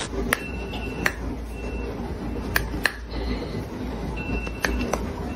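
A dog's teeth clacking shut in about half a dozen sharp, irregularly spaced clicks as it snaps at a piece of food held above its head.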